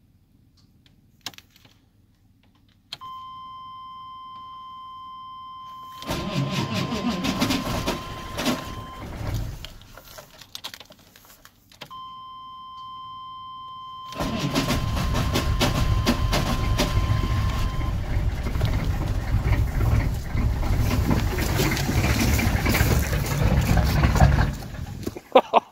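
GM 6.5-litre diesel V8 being cold-started on a battery of doubtful charge: a steady dash warning tone sounds each time the key is turned on, a first crank of about three seconds dies away without the engine starting, then a second long crank runs on into the engine running rough until it cuts off near the end.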